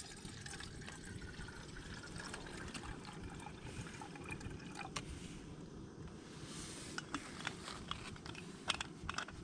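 Water poured from a bottle into a metal camping mug, a steady trickling fill over the first few seconds. Several short clicks and rustles follow near the end.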